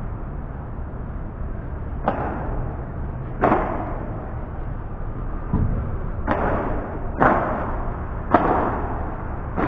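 Padel rally: a padel ball struck back and forth with solid paddles, giving five sharp hits about a second apart plus one duller thud, over a steady low rumble.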